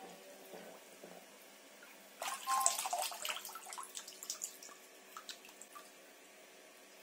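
Water from a running bathroom sink tap splashing over a handheld Bluetooth speaker, with a louder spell of splashing about two seconds in, then scattered drips that thin out.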